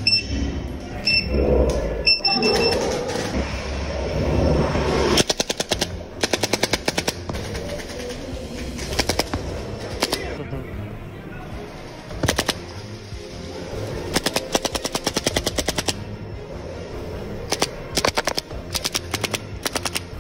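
Laser tag guns firing volleys of rapid electronic shot sounds, several bursts of quick evenly spaced shots. For the first few seconds, loud music with a heavy low beat and a few short high beeps are heard instead.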